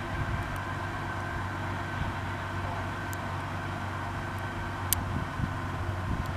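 Steady low hum under outdoor background noise, with a few faint ticks.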